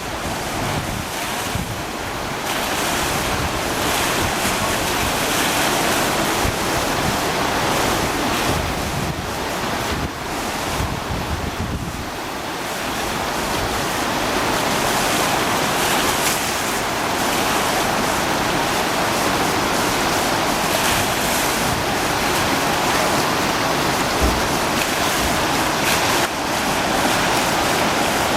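River Cree in flood: fast, swollen river water rushing in a loud, steady roar, with some wind on the microphone.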